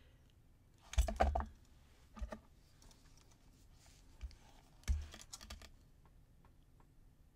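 Small metal clicks and taps of jewelry pliers on wire and findings over a wooden table while a wire loop is wrapped. The loudest knocks come in clusters about a second in and again about five seconds in, with lighter ticks in between.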